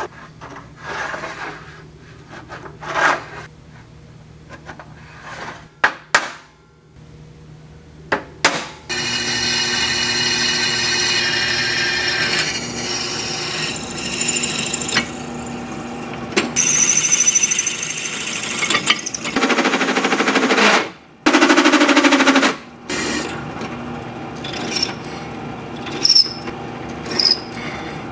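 Metal parts knocked and clinking as they are handled, then a drill press starting about nine seconds in and running with a steady whine while it drills holes in a metal plate; the pitch shifts partway through and the sound is loudest a little past the middle.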